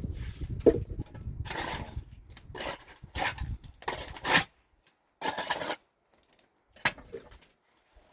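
A series of short scraping or rubbing strokes with light knocks, about half a dozen spaced irregularly, over a low rumble that fades out about halfway through.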